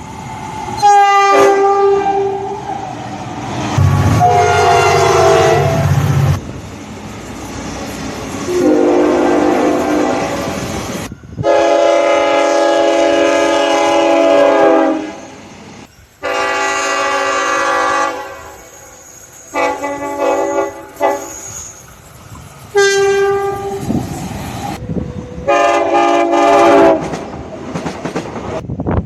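A string of train horn blasts from passing trains, cut one after another. Each is a chord of several notes, and several of them drop in pitch as the train goes by (Doppler effect).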